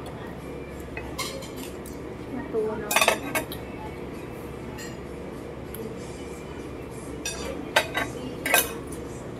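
Metal fork and knife scraping and clinking against a ceramic plate while cutting pancakes. The clinks are scattered, with a loud cluster about three seconds in and several more near the end.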